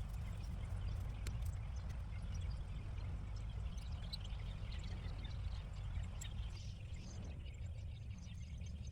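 Potatoes being dug out of a garden bed: soil and tubers crumbling and rustling, with many small scattered clicks. A steady low rumble lies under it and eases about two-thirds of the way through.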